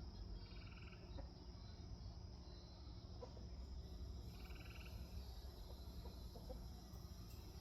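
Frog calling from the garden: two short trilled calls about four seconds apart, over the steady high chirring of insects.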